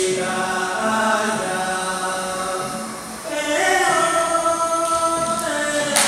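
Choral vocal music: voices singing long held notes, moving to new pitches after a brief dip about three seconds in.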